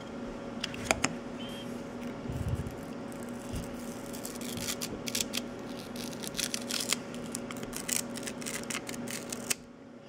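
Clear laser-printer transparency film crackling with quick ticks as it is slowly peeled off a copper-clad circuit board after toner transfer, the toner traces left on the copper. A steady low hum runs underneath and cuts off near the end.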